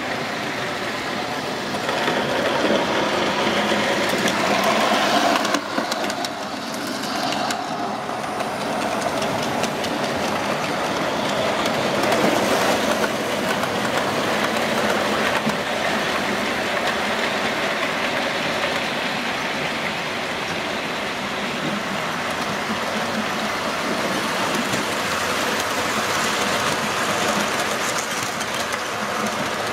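Model trains running on the layout: locomotive and coaches rolling over the track with a steady rumble and clickety-clack of wheels over rail joints.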